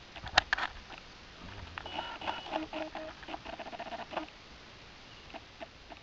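African wild dogs twittering: a quick run of short, squeaky chirps lasting about two and a half seconds, after a few sharp knocks at the start.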